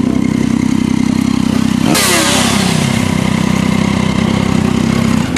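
Motorcycle engines running steadily. About two seconds in, a sudden loud hiss breaks in, with a pitch that falls over about a second, then fades back under the engine sound.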